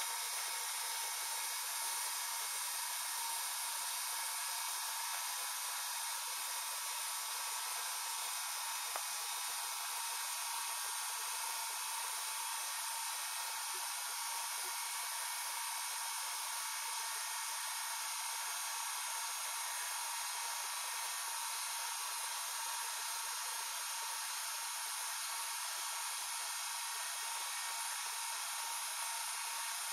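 Vacuum pump running steadily, a constant whir and hiss, as it pumps down the glass jar so the water inside boils at low pressure.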